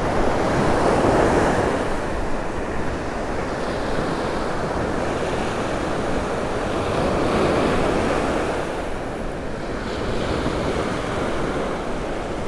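Small surf breaking and washing up the sand, swelling louder about a second in and again around seven seconds. Wind rumbles on the microphone.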